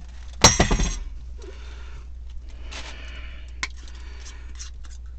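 A brief sharp clatter about half a second in: several quick knocks within half a second, the loudest sound here. A steady low hum runs under it.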